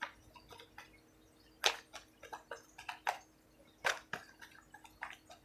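Tarot cards being handled on a table: scattered light clicks and taps, with two sharper ones at about a second and a half and four seconds in.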